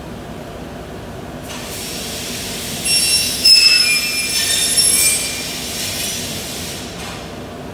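Glass cutter scoring a line across a sheet of glass: a high, hissing screech starts about a second and a half in, rises to several squealing tones in the middle, and stops suddenly near the end.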